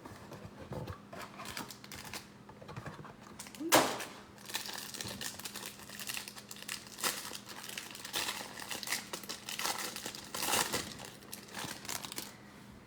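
Packaging crinkling and tearing as a trading card hanger box and its single large wrapper pack are opened, with many irregular rustles and crackles and one louder crackle about four seconds in.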